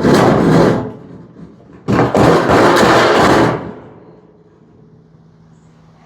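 Electric paint sprayer spraying primer in two bursts, about a second and then about a second and a half, with a faint steady hum after.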